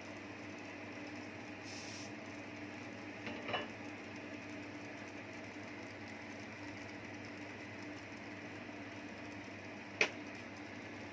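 Steady mechanical hum with a constant low tone, broken by a soft knock about three and a half seconds in and one sharp click near the end.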